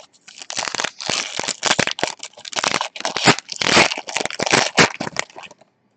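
Trading card pack wrapper being torn open and crinkled by hand: a run of loud crackling and tearing that stops about half a second before the end.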